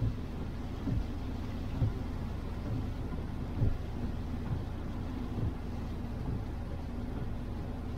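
Steady low rumble and hiss of a car driving on a rain-soaked road, heard from inside the cabin, with soft low thumps about once a second.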